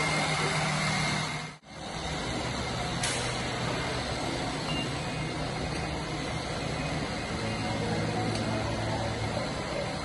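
Steady hum and noise of a large indoor space with faint voices in it, broken by a brief drop-out about one and a half seconds in.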